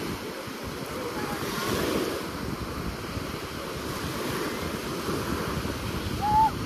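Small sea waves breaking and washing up the sand, with wind buffeting the microphone. A brief high cry rises and falls near the end.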